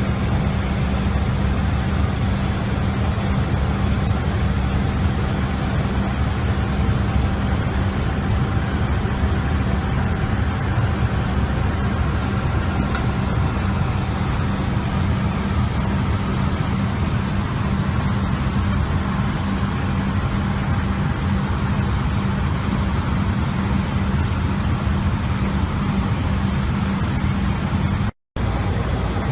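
Airliner cockpit noise in cruise flight: a loud, even rush of airflow with a steady low hum. It breaks off for a split second near the end.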